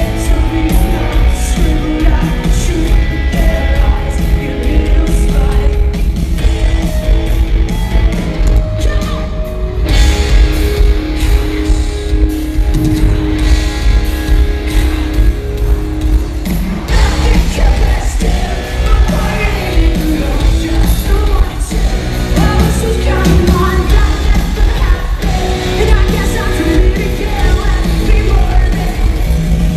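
Live rock band playing loudly with drums, guitars and bass, and a female lead singer's vocal over them, recorded in an arena.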